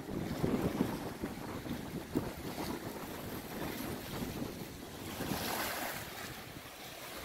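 Choppy lake water lapping and splashing against a grassy bank, with wind buffeting the microphone; one louder wash of water about five seconds in.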